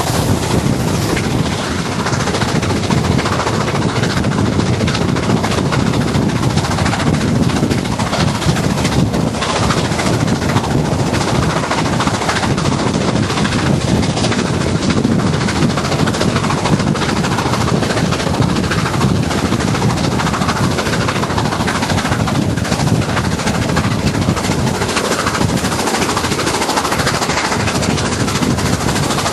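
BR Standard Class 7 'Britannia' Pacific steam locomotive, a two-cylinder engine, hauling nine coaches, its exhaust beating in a rapid, continuous chatter, heard from an open coach window along with the train's running noise on the rails and the rush of air.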